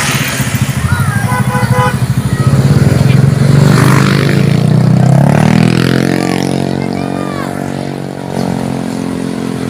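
A bus's diesel engine running loud and close, its note climbing about five seconds in and then holding steady as the sound slowly fades.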